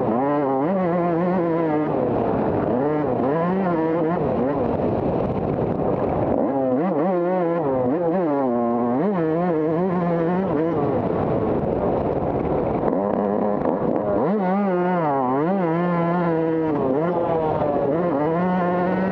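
Motocross bike engine heard up close from the bike itself, revving hard and falling away again and again as the rider accelerates, shifts and rolls off through the track's turns, holding steady for a few seconds on the straighter stretches.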